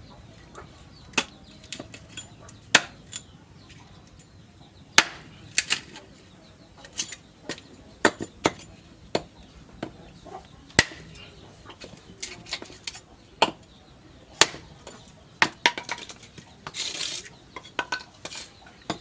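Irregular sharp metal knocks and clinks in a blacksmith's workshop, some ringing briefly, with a short hiss about seventeen seconds in.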